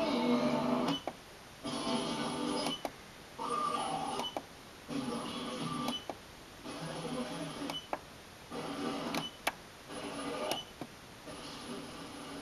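A digital AM radio tuner stepping through the band: about eight short snatches of station audio, each lasting about a second and cut off by a brief quieter gap with a click as the tuner jumps to the next frequency.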